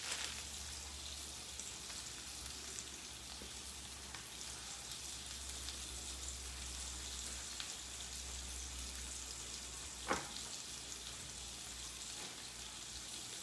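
Thin steaks sizzling steadily in a pan of hot vegetable oil on medium-high heat. One sharp click about ten seconds in.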